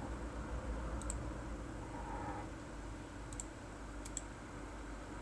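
Computer mouse clicking a few times, in quick pairs about a second in, near three and a half seconds and just past four seconds, over a low steady hum.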